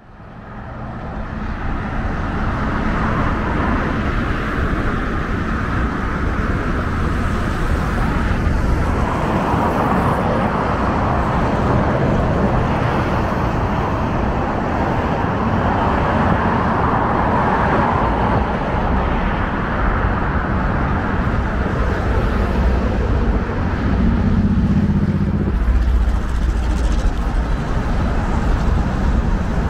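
Steady city road traffic noise, fading in over the first couple of seconds, with a few swells as cars pass.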